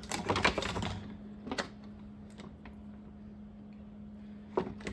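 Small plastic clicks and rattles of a cable being fed through a fire alarm call point's plastic box: a quick run of clicks at the start, a single click about a second and a half in, and another short cluster near the end, over a steady low hum.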